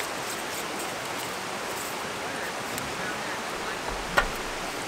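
Steady rush of a flowing creek, with faint clicks of a Jetboil burner being screwed onto its fuel canister and one sharp knock about four seconds in as the canister is set down on the camp table.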